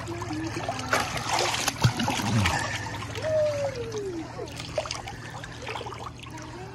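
Pool water splashing and lapping as a dog paddles through it. The water noise is louder about one to two and a half seconds in, with a sharp splash near two seconds.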